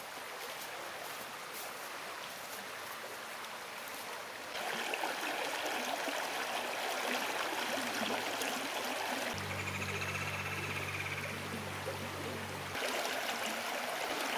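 Creek water running over a shallow, snag-strewn bed with a steady rushing babble; it gets louder about four and a half seconds in. A steady low hum joins for about three seconds past the middle.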